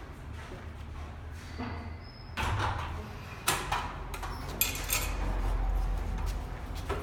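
Footsteps and handling knocks at a glass entrance door, with a noisy rustle about two and a half seconds in, several sharp clacks after that, and a low rumble through the second half.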